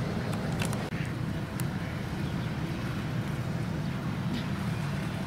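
Steady low outdoor background rumble on the microphone at a duck pond, with a brief drop in level just before a second in and a few faint clicks.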